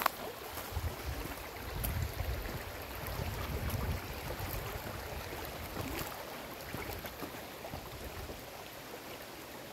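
Steady rush of water from a waterfall on a small mountain river. A low rumble swells under it from about one to five seconds in.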